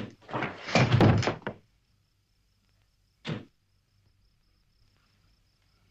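A silenced pistol shot, followed at once by about a second of loud heavy thuds, and a second silenced shot about three seconds in. A faint steady chirring of insects runs underneath.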